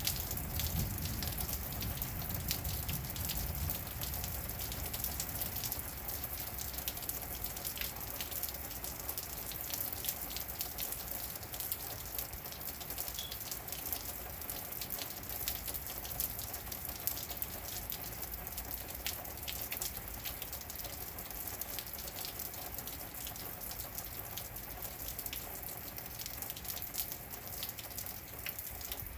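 Steady rain falling, with many close raindrop ticks and drips on hard surfaces, and a low rumble during the first few seconds.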